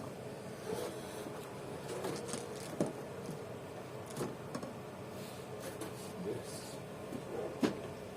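Scattered light clicks and knocks of hand work on car parts at the base of the windscreen, two of them sharper: one a little under 3 s in and one near the end.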